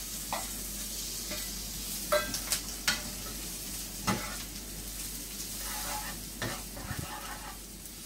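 Raw shrimp sizzling in hot oil with garlic in a frying pan, a steady hiss, while a utensil stirs them and knocks against the pan several times, sharpest about two seconds in and again around four seconds.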